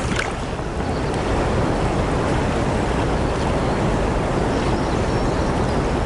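Steady rush of river water flowing below a lock and dam: an even, unbroken noise, heaviest in the low end.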